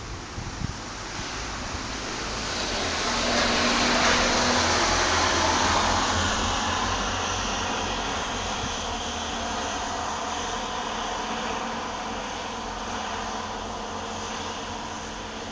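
Thunder rolling: a deep rumble that swells over the first few seconds, peaks about four to six seconds in, then slowly dies away.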